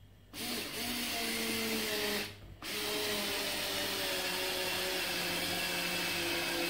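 Parkside PAS 4 B3 4-volt cordless screwdriver running under load as it drives a screw into soft wood, in two runs with a short stop about two seconds in.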